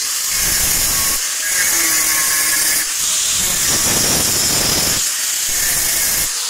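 Angle grinder with a thin cut-off disc cutting through a steel strip clamped in a vise: a loud, steady hiss of disc on metal that starts abruptly.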